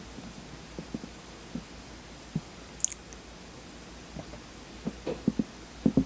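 Close-miked eating of Oreo ice cream: scattered soft mouth smacks and knocks, with one sharp high click about three seconds in and a quick cluster of louder soft knocks near the end.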